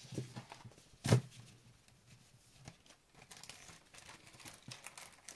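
Scrapbooking paper pad being handled, with light paper rustling and small clicks, and one sharp thump about a second in.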